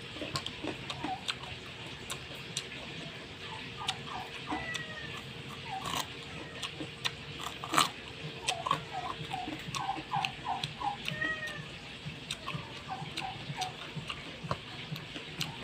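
Crisp bites into a raw carrot, the loudest crunch about halfway through. Behind them, an animal gives short high-pitched calls in quick runs of several, again and again.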